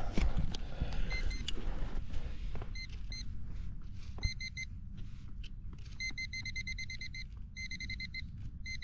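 A few spade knocks into turf at the start. Then a handheld metal-detecting pinpointer, pushed into the dug soil, gives scattered short beeps that turn into long runs of rapid beeping in the second half: it is signalling metal close to its tip.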